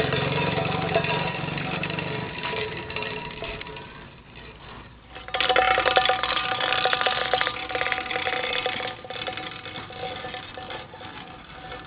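New Year's noisemakers: steady horn-like tones, joined about five seconds in by a louder rapid rattling that fades toward the end. A low hum sits underneath for the first two seconds.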